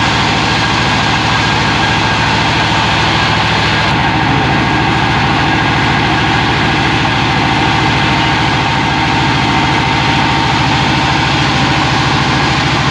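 A riverboat's engine running steadily and loudly beneath the deck, with a fast, even beat.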